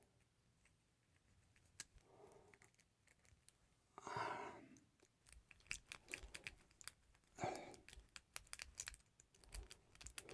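Faint clicking and scraping of lock picks working inside a Master Lock padlock, a rapid, irregular run of small metal clicks with a couple of short rasping scrapes.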